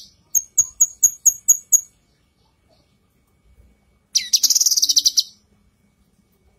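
Female cucak kinoi calling: a run of about seven sharp, very high chirps at roughly four a second, then, about four seconds in, a loud, rapid chattering trill lasting just over a second.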